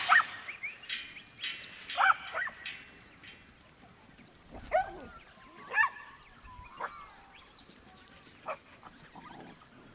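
Black-and-tan kelpie barking while working sheep: a string of short barks spread out with pauses between them.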